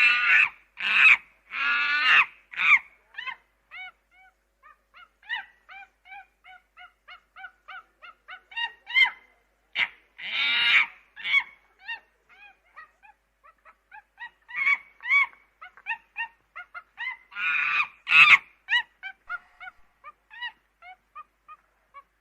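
Chimpanzees calling: runs of short, rapid high hoots, broken by loud screaming bursts at the start, in the middle and about three-quarters of the way through.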